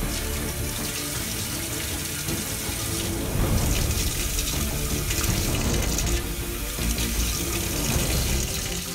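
Bidet spray jet running, its water rushing and splattering into the ceramic bowl, with the splash breaking up as a cat paws at the stream. Background music plays under it.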